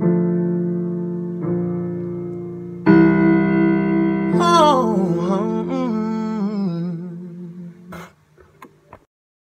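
Music: sustained keyboard chords, struck three times, then a man's wordless vocal run with wavering pitch over the last chord, fading out. A few short clicks come near the end, then silence.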